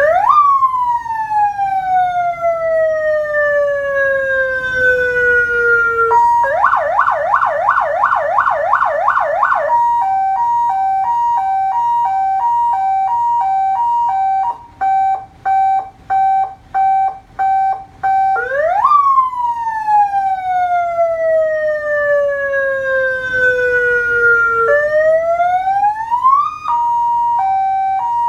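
Electronic emergency-vehicle siren cycling through its tones. It opens with a quick rise and a slow falling wind-down, switches to a fast yelp for about three seconds, then to an alternating two-note hi-lo that breaks into short pulses. It repeats the rise and slow fall, gives a rising sweep near the end, and returns to hi-lo.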